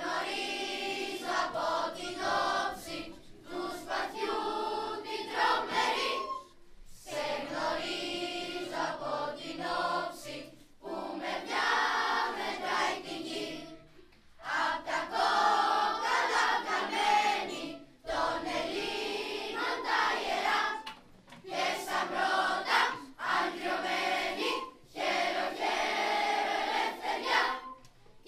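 Children's choir singing together in Greek, line by line, with short breaks between phrases every few seconds.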